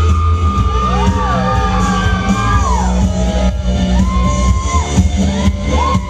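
Loud music for a stage act, with a heavy, steady bass and a high line of long held notes that slide up and down.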